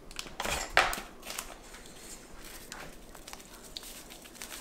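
Plastic bag of icing sugar rustling and crinkling as it is handled and scooped from, louder about a second in and then softer.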